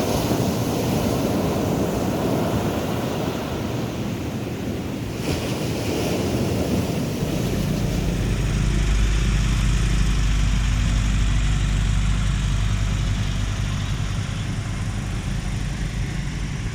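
Sea surf washing in, with wind buffeting the microphone. The wind rumble grows heavy about halfway through.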